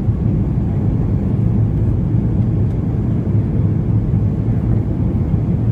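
Boeing 737-800 airliner's engines and airflow making a steady, loud low rumble, with no change in pitch or level.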